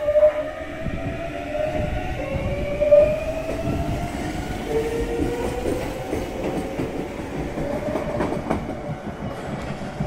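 Yoro Railway electric train, car 7701, pulling away from the station: its traction motors give a whine that rises slowly in pitch as it gathers speed, over a running rumble. The wheels knock over rail joints a few times near the end.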